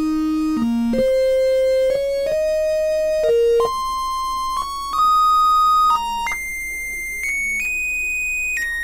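Sylenth1 software synthesizer playing its 'LD Screamer' lead patch through the arpeggiator in step mode, triggered by one held key. Bright single notes follow each other without gaps in a four-note figure that repeats an octave higher each time, climbing about three octaves with small steps back down along the way.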